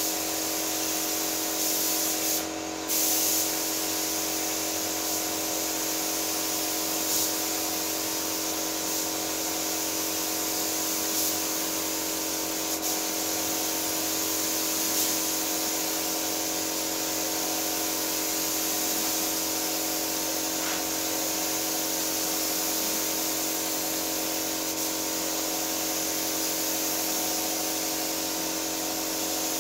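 Compressed-air paint spray gun spraying car paint onto a body panel: a steady hiss of air and atomised paint, over a steady hum.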